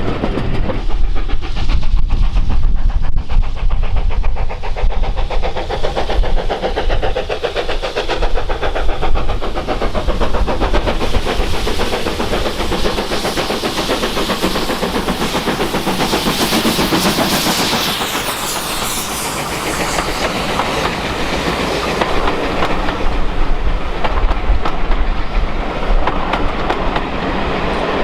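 Preserved steam train running past, its carriage wheels clattering over the rail joints, with a hiss swelling briefly about two-thirds of the way through.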